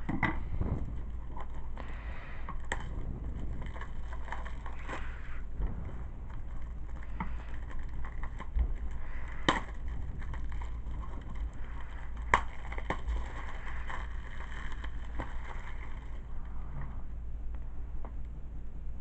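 DVD packaging being unwrapped by hand: plastic wrapping crinkling with scattered sharp clicks and two louder snaps near the middle, over a low steady hum.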